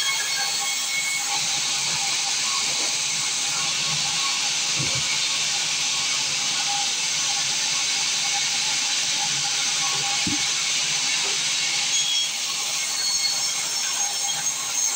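Sawmill saw cutting timber, a steady hissing noise with a faint constant tone under it.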